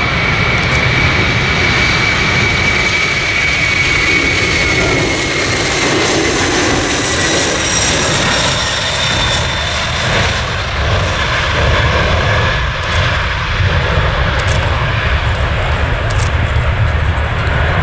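Four Pratt & Whitney PW4056 turbofans of a Boeing 747-400 at takeoff power during the takeoff roll and liftoff. It is a steady, loud roar with a high fan whine that drops in pitch as the jet passes, about halfway through, and a deep rumble that carries on as it climbs away.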